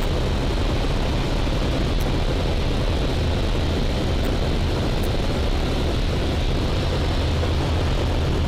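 Steady drone of a Eurofox microlight's engine and propeller at constant power in flight, heard through the cockpit headset intercom with a layer of hiss.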